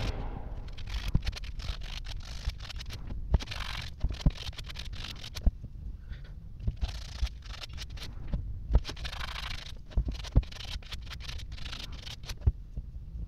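Hand sanding of a metal water-pump motor housing with abrasive paper: irregular rasping strokes come and go, with frequent short knocks as the part and hand shift on the bench.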